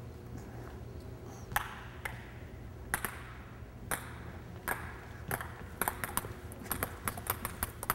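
Celluloid table tennis balls struck with rubber-faced paddles and bouncing on a wooden gym floor in a backspin drill: sharp, hollow ticks, a few spaced out at first, then coming thick and fast from about six seconds in as several players go at once.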